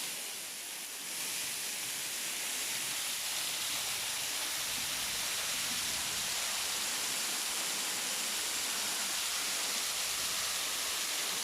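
Waterfall rushing: a steady, even hiss of falling water that swells slightly about a second in.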